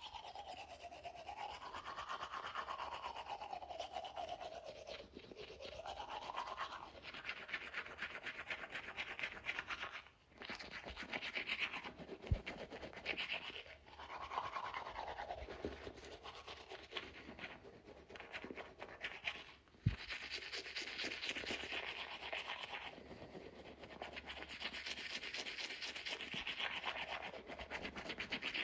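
Toothbrush bristles scrubbing teeth in a steady run of quick strokes, the pitch of the scrubbing rising and falling as the brush moves around the mouth. It stops briefly twice, with two short soft knocks.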